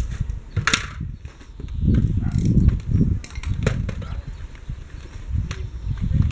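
Wind buffeting the microphone in uneven gusts, with a few sharp clicks and knocks of tools being handled, the loudest just under a second in.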